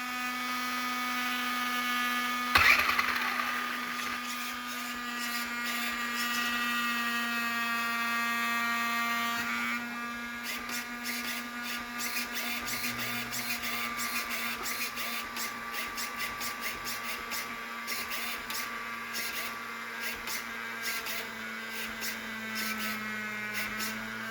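Small electric motors whirring steadily: the Traxxas Slash RC truck's cooling fans and electric drive running, with a whine that rises slightly over the first few seconds. A sharp click comes about two and a half seconds in, and rapid irregular ticking runs through the second half.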